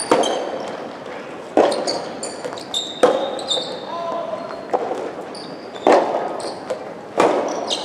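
Soft tennis rally with the rubber ball struck by rackets six times, about every one and a half seconds, each hit echoing through the gymnasium. Short high squeaks from players' shoes on the court floor come between the hits.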